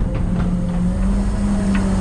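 Front-load garbage truck running with a steady hum, heard from inside the hopper, with a few light knocks about half a second in and near the end.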